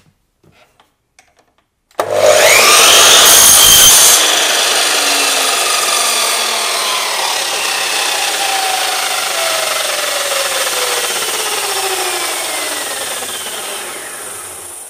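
Drop saw (mitre saw) switched on about two seconds in, its motor whining up to speed and the blade cutting through a clamped timber board, loudest for the first couple of seconds. The saw is then released and the blade spins down for about ten seconds with a steadily falling whine that fades out.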